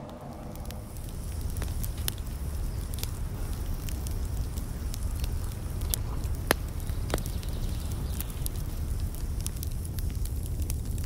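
Wood fire burning in a small metal twig stove: a steady low rumble with irregular sharp crackles and pops, the loudest about six and a half seconds in.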